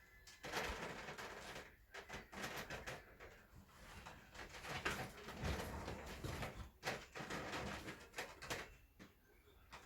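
Cats playing: irregular rustling, scuffling and light knocks that come and go in short spells and die down near the end.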